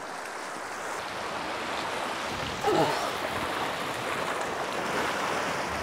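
Steady rush of sea surf washing against a rocky shore.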